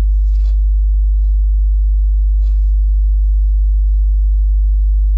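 Dayton Audio Ultimax 15-inch subwoofer playing a steady, loud, very low bass test tone, one unbroken note.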